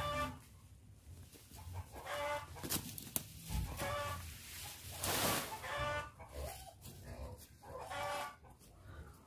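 A chicken calling, about five calls spaced roughly two seconds apart. A brief rustling noise comes about five seconds in.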